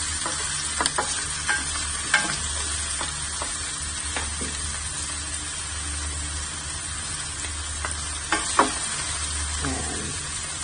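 Diced onion sizzling steadily in olive oil in a stainless steel frying pan, with scattered scrapes and taps of a nylon spatula stirring it, the sharpest about two seconds in and again about eight seconds in.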